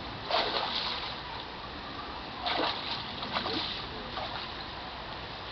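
Hooked pike thrashing at the water's surface, splashing in short bursts: the loudest about half a second in, then two more around the middle.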